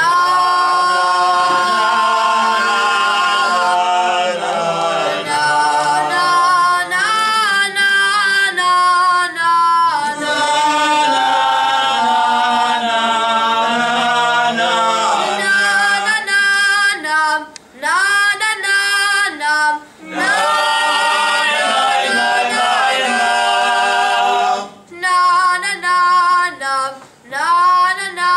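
Unaccompanied men's voices singing the Selichot penitential prayers, a prayer leader's ornamented melody carried with the congregation. The notes slide and waver, with short breaks between phrases in the second half.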